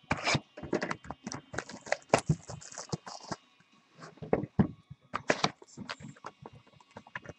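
Box and pack packaging of 2012 Bowman Chrome baseball cards being torn open by hand: irregular ripping, crinkling and tapping, with a short lull a little after halfway.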